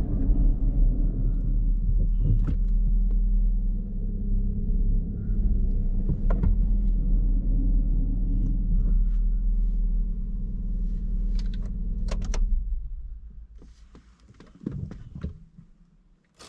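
Land Rover Freelander 1's engine running with a steady low rumble, then switched off and dying away about 13 seconds in. Scattered sharp clicks, with a few light knocks after it stops.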